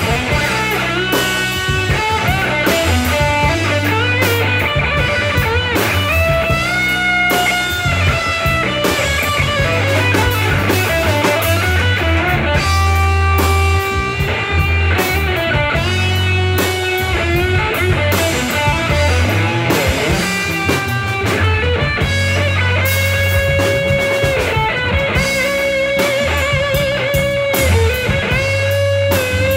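Electric guitar playing a live lead solo through an amplifier in a blues instrumental, with held notes, string bends and wide vibrato, over a drum kit and a steady low bass line.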